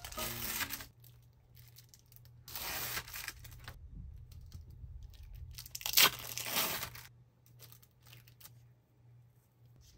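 Plastic film being peeled off sandwich cheese slices and crinkled, in three rustling bursts, the loudest about six seconds in.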